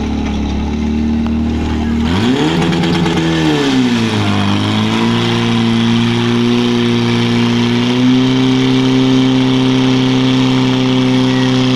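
Portable fire pump's engine running hard, revving up sharply about two seconds in, dipping briefly, then holding at high revs with a further small rise near eight seconds, as it drives water out through the attack hoses.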